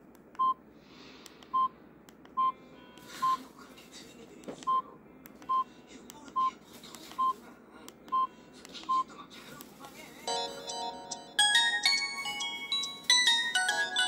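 Samsung GT-E1195 flip phone's keypad beeping: ten short, identical beeps about a second apart as its menus are stepped through. From about ten seconds in, a polyphonic ringtone starts playing from the phone's speaker as a preview of a default melody, getting louder a second later.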